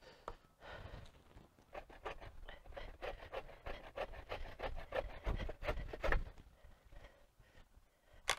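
Quick, uneven scraping and rubbing of wood as a branch is worked off by hand low to the ground, ending with a single sharp knock.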